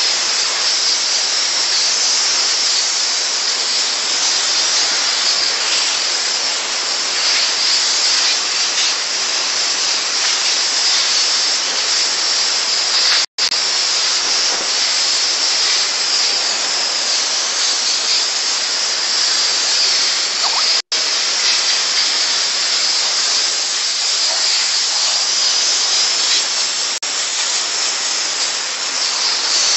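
Steam jetting from a steam car washer's hand-held spray gun: a steady, loud, high-pitched hiss that cuts out completely for an instant twice.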